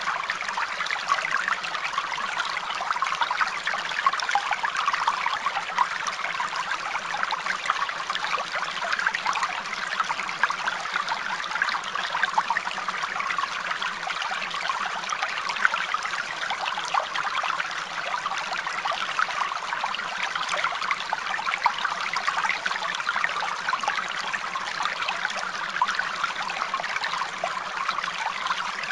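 Steady running water, like a small stream trickling, with many fine splashes and no change or pause.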